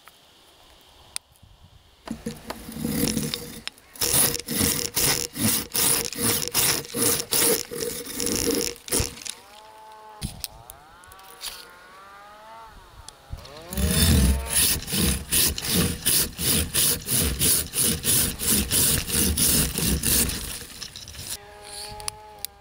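Silky Sugoi 360 Japanese pruning saw cutting through a live tree branch by hand: rapid back-and-forth strokes, about two to three a second, in two long runs with a pause of a few seconds between them.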